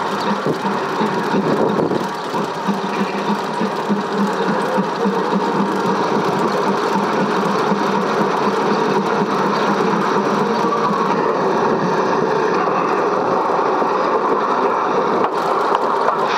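Steady mechanical running with a fast, fine rattle over a low hum.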